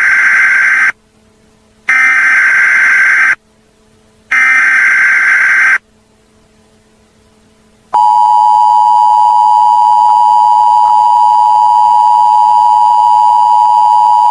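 Emergency Alert System broadcast signal: three bursts of digital SAME header data tones, each about a second and a half long with short gaps, then from about 8 s in the steady two-tone EAS attention signal, held loud to the end.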